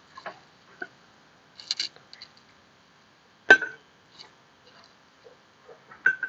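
Stainless steel ball valve parts handled on a bench: small taps and rustles, a sharp metallic knock with a short ring about three and a half seconds in, and another ringing knock near the end as the stainless ball is set into the valve body.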